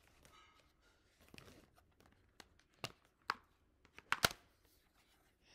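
Plastic wrapping crinkling and crackling as a costume mask still in its plastic wrap is picked up and handled. Faint rustling gives way to a few sharp crackles, the loudest pair about four seconds in.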